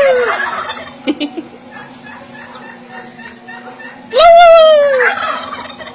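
Domestic turkeys gobbling: two loud calls about four seconds apart, each a pitched cry that rises and falls and trails off into a rattle.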